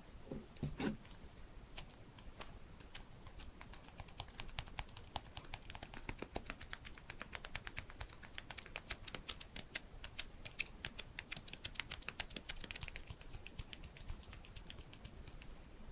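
Rapid thumb taps on a smartphone's glass touchscreen: a dense run of small sharp clicks, several a second, thinning out near the end. Under a second in, a couple of low knocks as the phone is picked up off the table.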